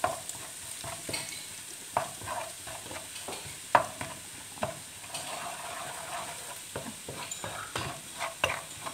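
Pounded garlic and candlenut paste sizzling in hot oil in a wok, while a wooden spatula stirs it and knocks and scrapes against the pan at irregular moments.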